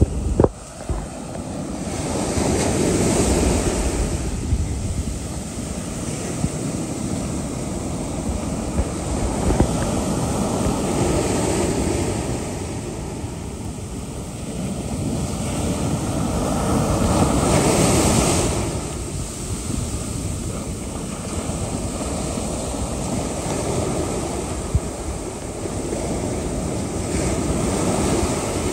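Ocean surf breaking and washing up the beach, swelling and easing every several seconds, with one loud surge a little past the middle. Wind buffets the microphone throughout.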